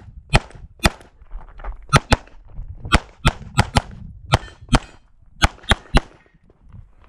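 About a dozen rapid pistol shots from a Walther PDP SF, fired in quick pairs and singles at varying intervals as in a practical-shooting stage run, stopping about six seconds in.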